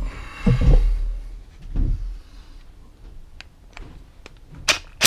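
Handling bumps and rustling, then a few separate sharp clicks and knocks, the loudest near the end, as a socket wrench on an extension bar is fitted to the float bowl nut of a lawnmower carburettor.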